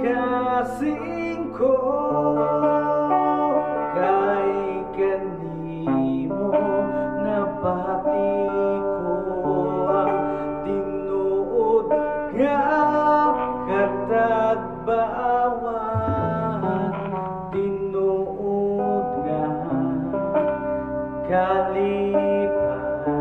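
A man singing into a microphone, accompanied by a plucked electric guitar.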